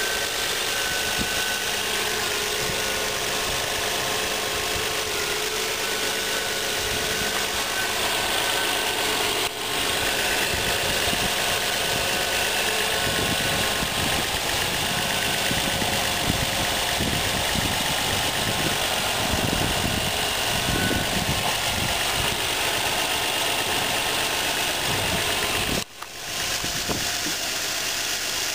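Nissan VQ35DE 3.5-litre V6 of a 2003 Maxima idling steadily, heard from over the open engine bay. There is a brief break in the sound near the end.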